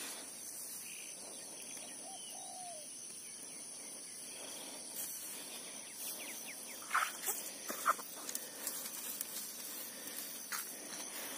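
Footsteps and rustling through grass and dry stubble, starting about seven seconds in and running on unevenly. A single short bird call sounds faintly about two seconds in.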